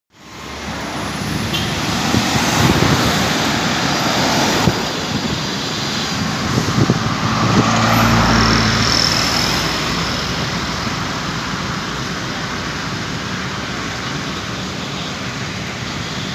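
Street traffic noise, with a motorcycle engine passing close by about halfway through.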